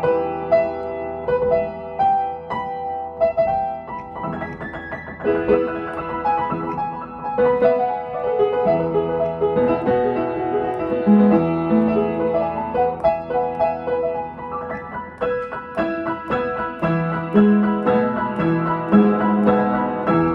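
A piano played solo, a continuous run of notes with a melody over moving chords.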